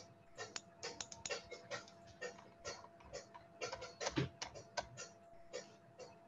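Computer keys and mouse buttons clicking in quick, irregular runs while a screen share is being set up, with a louder knock about four seconds in, over a faint steady hum.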